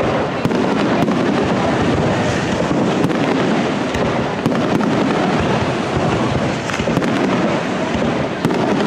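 Aerial fireworks display: a dense, continuous barrage of shell bursts, with bangs and crackling going off in quick succession throughout.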